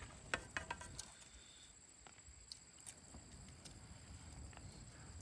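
Quiet outdoor eating sounds: a few light clicks and taps of spoons on paper plates in the first second, then a faint steady high-pitched insect trill from the grass.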